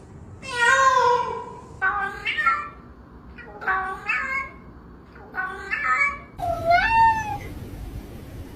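A cat meowing repeatedly: about five separate meows, the first and last the longest.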